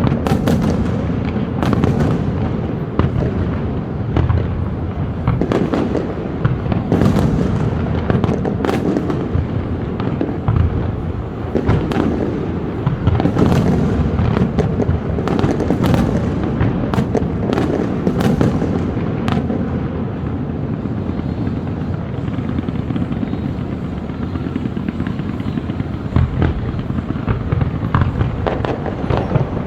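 Large aerial fireworks display going off: many sharp bangs and cracks, closely packed, over a constant rumble of overlapping explosions. The cracks are densest through the first two-thirds and thin out towards the end.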